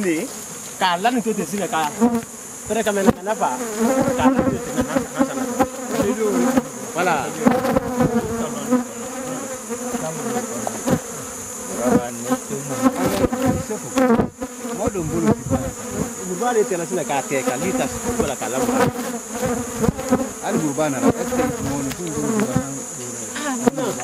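Many honeybees buzzing close around the microphone, agitated by the harvest of their traditional grass-wrapped basket hive. The buzzes overlap, each one rising and falling in pitch as a bee flies past.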